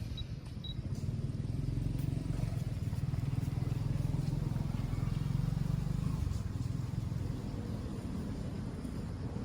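A motor vehicle, likely a motorcycle, passing by: a low engine rumble that swells about a second in, holds, then fades over the last few seconds.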